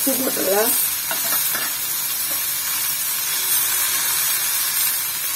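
Pumpkin cubes frying in hot oil in a kadai, a steady sizzling hiss.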